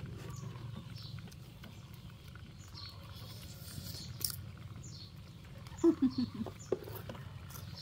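Outdoor ambience: short high chirps repeat about once or twice a second over a low steady hum. About six seconds in come a few brief low voice-like sounds, the loudest part.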